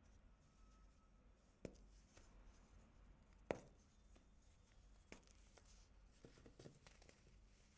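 Compressed baking soda crunching: a few sharp, separate crunches spaced one to two seconds apart, the loudest about halfway through, with near silence between them.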